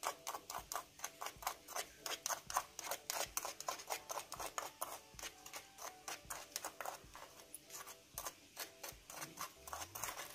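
Metal spoon scraping and tapping against a small bowl while spooning out powdered seasoning, a quick irregular run of light clicks, several a second.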